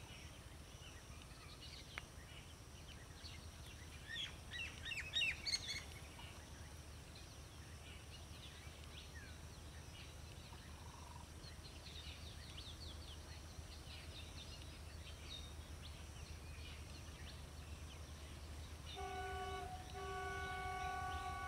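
Birds chirping over a low steady rumble. Near the end a diesel locomotive's multi-tone horn sounds: a short blast, a brief break, then a long held blast.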